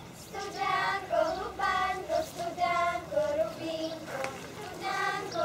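Young girls singing a folk song together in one voice, unaccompanied, with high, held notes.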